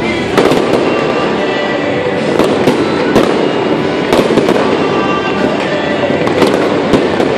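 Fireworks display: aerial shells bursting with a continuous crackle and repeated sharp bangs at irregular intervals.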